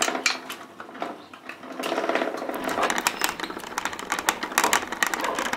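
Hand-turned wooden quill winder (caneleiro) spinning, its wheel driving the spindle by a cord as thread winds onto a quill: a rapid, continuous rattling whir that starts sharply and grows fuller after about two seconds.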